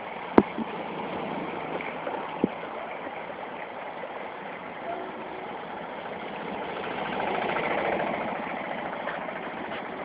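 Motor traffic driving through a flooded street: a minibus's engine passes close, swelling in loudness about seven to eight seconds in as its wheels push through the floodwater. A couple of sharp clicks sound in the first few seconds.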